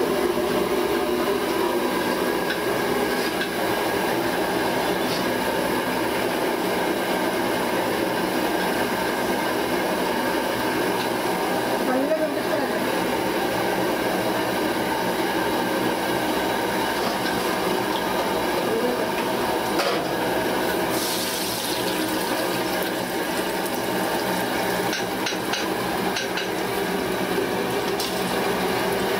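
Upma bajji deep-frying in a wide iron kadai of hot oil: a steady sizzle and bubbling, with a brief sharper hiss about two-thirds of the way through.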